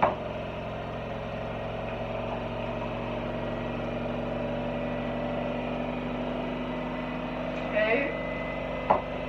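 Washing machine on its spin cycle, a steady mechanical hum throughout. Near the end, water is poured from a mug into a saucepan, followed by a sharp knock.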